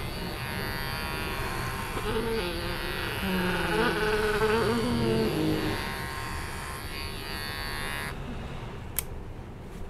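Cordless electric hair clipper buzzing steadily while shaving a head, with a low voice sounding over it for a few seconds in the middle. The buzz cuts off about eight seconds in, and a single click follows about a second later.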